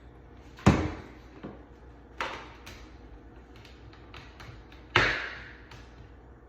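A few sharp knocks and clacks of a hole-cutter jig and tools handled against a wooden door, the loudest about a second in and another about five seconds in, with fainter clicks between.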